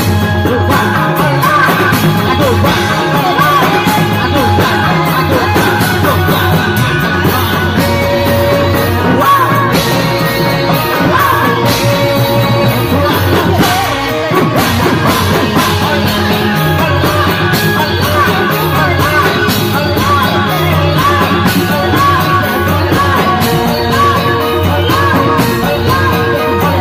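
Loud Indramayu reog music: a singer over drums and melodic instruments, playing without a break.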